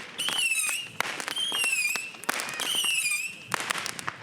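Small handheld fireworks going off: four shrill whistles, each about half a second long and holding or dipping slightly in pitch, among many sharp crackling pops.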